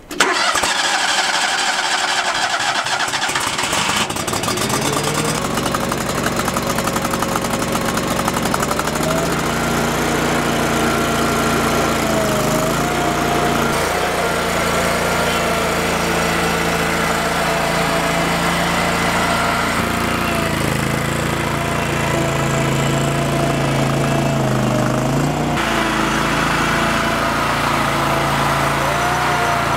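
Small gasoline engine of a stand-on mini tracked loader starting up, then being throttled up a few seconds in. It runs steadily, its pitch dipping and recovering several times as the machine drives and works its hydraulics.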